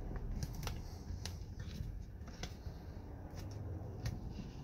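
Scattered light clicks and scuffs, irregular and about a dozen in all, as a Lexan window pane in its rubber gasket is pushed and worked by hand into a metal window frame, over a low steady hum.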